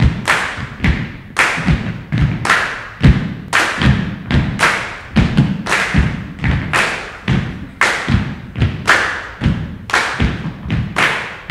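A steady rhythm of thumps and sharp claps, about two beats a second.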